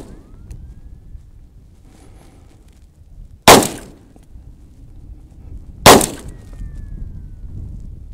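.22 pistol firing two single shots, the first a little before halfway and the second about two and a half seconds later.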